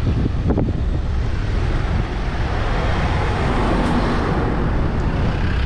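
Tractor engines running in a low, steady rumble as a convoy of tractors comes along the road, the noise swelling a little past the middle.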